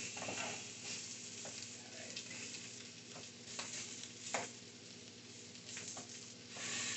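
Tilapia fillets sizzling in butter and oil in a very hot nonstick skillet, with a spatula scraping and tapping against the pan now and then; the sharpest tap comes about four seconds in.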